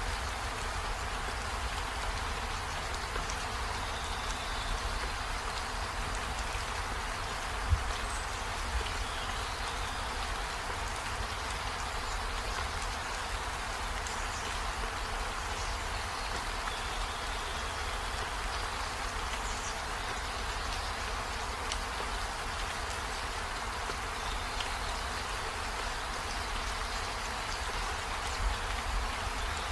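Steady even hiss with a low rumble underneath and one short thump about eight seconds in.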